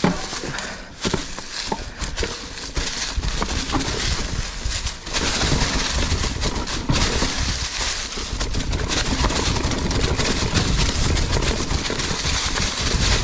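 Mountain bike riding down rocky singletrack: tyres on dirt and rock with steady clatter and knocks from the bike, and a wind rumble on the microphone that grows louder about five seconds in.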